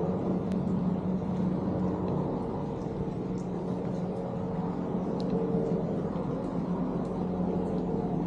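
A steady engine drone, a constant low hum over a rumble, with faint scattered light ticks over it.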